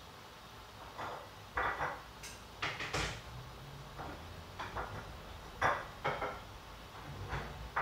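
Kitchen clatter of metal cookware at the stove: a pot, its lid and utensils knocked and set down in a series of irregular knocks and clinks, some with a short metallic ring, as freshly steamed cassava cakes are taken out.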